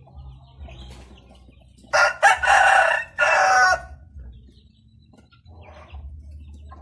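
A rooster crowing once, a loud cock-a-doodle-doo of about two seconds in three parts, starting about two seconds in.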